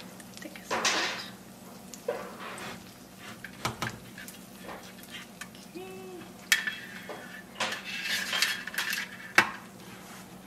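A few sharp clinks and knocks of metal against a ceramic roasting dish and pan, amid short stretches of faint sizzling from the hot, just-roasted meat's drippings.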